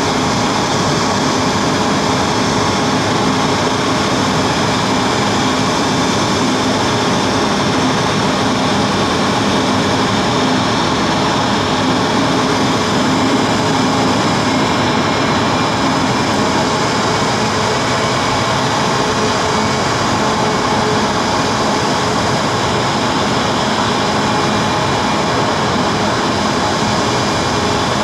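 Embraer E195-E2's Pratt & Whitney PW1900G geared turbofan engines running at a steady level, with many fixed whining tones over a loud rushing noise.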